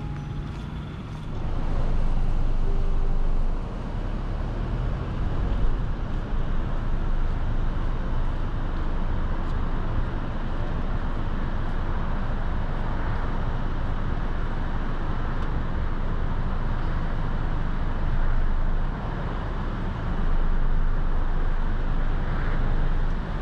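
Steady outdoor noise with a heavy low rumble that swells and dips a few times, with no distinct events.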